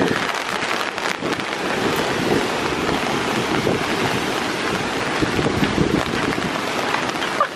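Strong tropical-storm wind blowing across the microphone in uneven gusts, over the steady rush of heavy surf breaking on a rocky shore.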